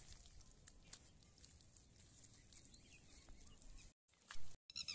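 Hands scooping and squeezing wet mud, with faint squelches and small crackles. Near the end the sound cuts out twice, with a short louder sound in between.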